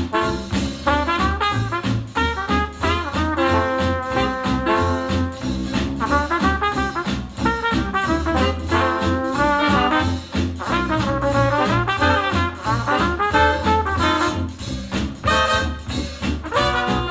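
A JBL Flip 6 portable Bluetooth speaker playing a retro jazz track: a pitched melody over a steady beat.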